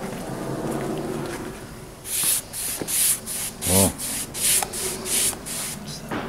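A paintbrush stroking a coating onto bare pine boards: the bristles scrape back and forth in quick, even strokes, about two to three a second, starting about two seconds in. A short low pitched sound comes near the middle, and before the strokes there is a steady low hum.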